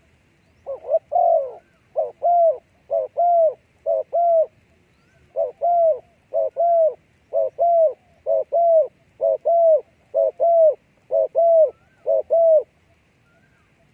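A dove cooing: a long series of paired coos, each note arching down in pitch, about one pair a second, with a short break partway through.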